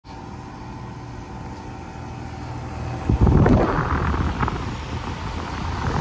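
Carrier Comfort-series central air conditioner condenser running with a steady hum of fan and compressor. About three seconds in, the loud, gusty rumble of the fan's discharge air buffeting the microphone takes over as it comes right over the top fan grille.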